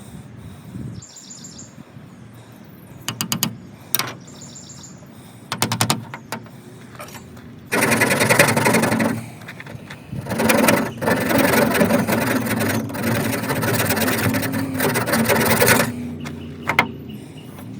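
Yucca hand-drill spindle spun between the palms, grinding into a water oak fireboard with a fast, rasping squeak. A few short strokes come first, then two long runs: one of about a second and a half, and one lasting about six seconds, starting near the middle.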